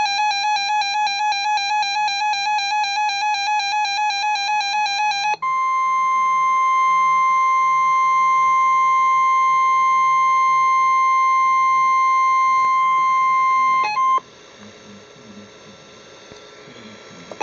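A weather radio receiver sounds an alert: first a rapidly pulsing beep for about five seconds, then NOAA Weather Radio's steady 1050 Hz warning alarm tone for about eight and a half seconds, which cuts off to a faint hiss, with a click near the end.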